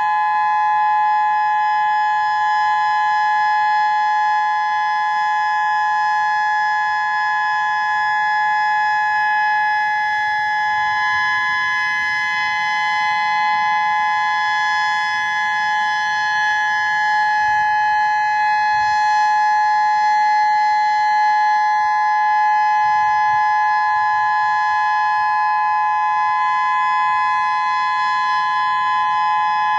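Whelen electronic outdoor warning siren sounding a steady alert tone during its monthly test: a loud held chord of a few notes that neither rises nor falls.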